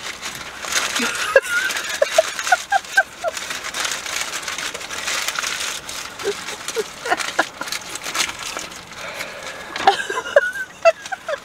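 Aluminium foil crinkling and rustling as it is pulled back from a burrito.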